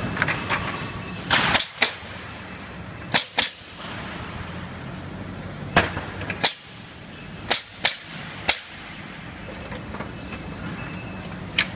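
Pneumatic nail gun firing nails into the wooden boards of a pallet: about ten sharp bangs, several in quick pairs, over a steady low hum.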